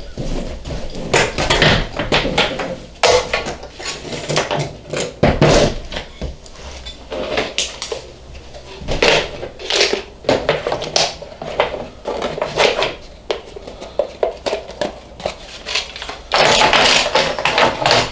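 Metal parts and tools being handled on a workbench: irregular clanks, knocks and rattles, with a denser clattering stretch of about a second and a half near the end.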